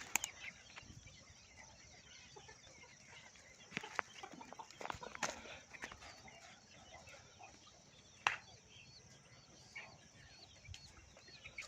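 Chickens clucking faintly, with a few sharp clicks or knocks, the loudest about eight seconds in.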